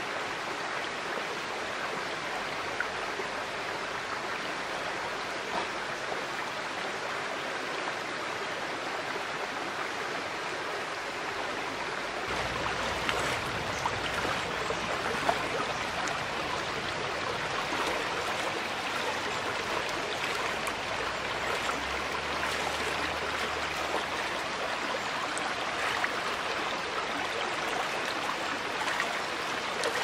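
Shallow stream babbling over stones in a steady wash of running water, growing a little louder about twelve seconds in.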